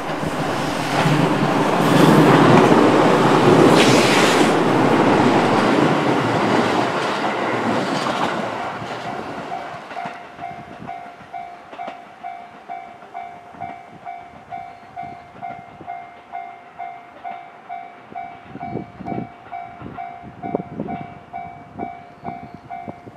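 JR 373 series electric express train passing, its loud running noise dying away after about nine seconds. A level-crossing alarm bell rings steadily at about two strikes a second, standing out clearly once the train has gone.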